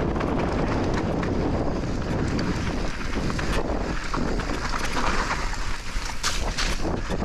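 Wind rushing over the camera microphone as a mountain bike rolls down a rough trail, with tyre noise and a scatter of short clicks and rattles from the bike over rocks, and a louder rush of hiss about five to six seconds in.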